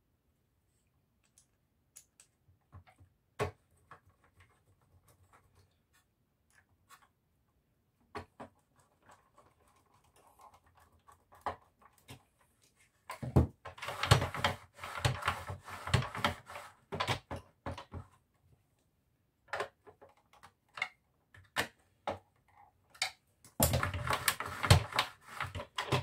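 Hard plastic parts of a Hoover upright vacuum cleaner being handled and fitted together by hand: scattered clicks and knocks, then dense rattling and scraping about halfway through and again near the end.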